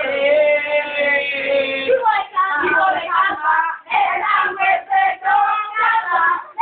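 Loud, sing-song human voices: one long held note for about two seconds, then quick, choppy syllables.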